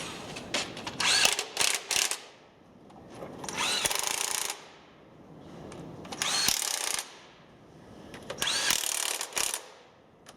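A power tool run in four short bursts of about a second each, with short pauses between them.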